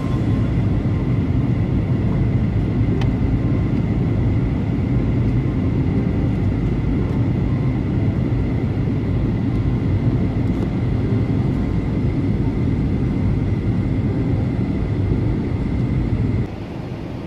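Steady cabin noise of a Boeing 737-800 airliner in flight: a constant low rumble of engines and airflow with a faint steady whine above it. It drops in level near the end.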